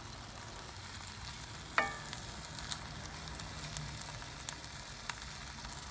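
Food sizzling in a hot Dutch oven as sauerkraut is spread and stirred over it with a wooden spoon, with scattered light crackles. A single sharper knock with a brief ring comes about two seconds in.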